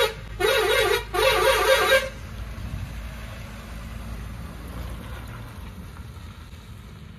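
A truck's horn sounding in short blasts with a rapidly warbling pitch, two of them in the first two seconds, then the truck's engine running low as it drives past and away.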